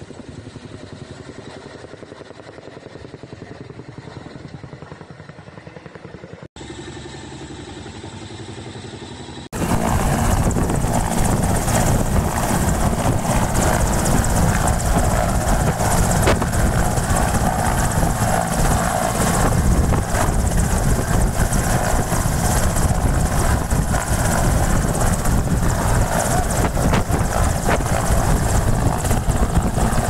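Helicopter noise: a steady, fairly quiet rotor and engine sound from a Chinook passing overhead. About ten seconds in, after a cut, it gives way to a much louder, steady roar from a helicopter running close by on the ground.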